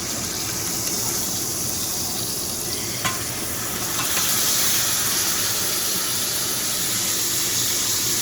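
Steak sizzling in a hot pan, a steady hiss with one sharp click about three seconds in, and a little louder from about four seconds in.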